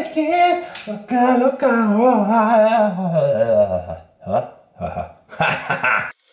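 A man's long, drawn-out burp that wobbles and slides down in pitch, then a few short bursts of laughter near the end.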